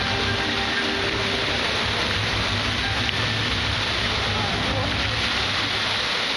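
Water jets of a large multimedia fountain spraying and falling back into the pool, a steady rushing hiss.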